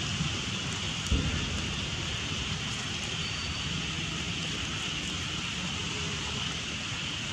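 Steady outdoor background hiss with a low rumble, like rain or insects, and a single short thump about a second in; no monkey cries are heard.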